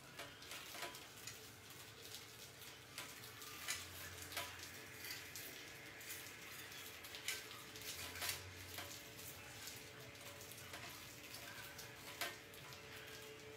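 Rats clambering over a wire-mesh cage trap and rustling in grain: faint, irregular clicks and scratching, over a faint steady hum.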